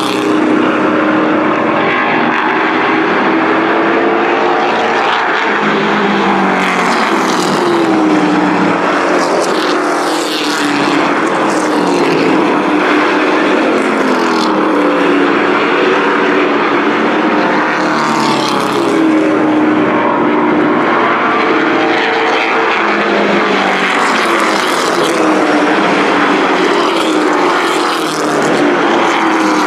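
Several small race trucks running laps on an oval, their engines overlapping as each one's pitch rises and falls with acceleration and lifting. The sound swells louder as trucks pass close, several times.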